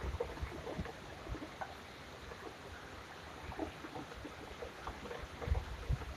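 Steady rain with scattered drips and patters, and low gusts of wind buffeting, strongest near the end.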